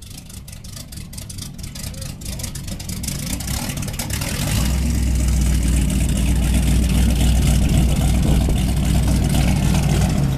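Inboard engine of an antique mahogany runabout running at low speed as the boat moves off from the dock. It grows louder over the first four or five seconds, then runs steadily.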